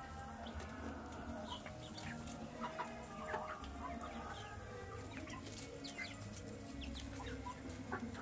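Young chicks peeping and clucking as they feed, with scattered short taps and a steady low hum underneath.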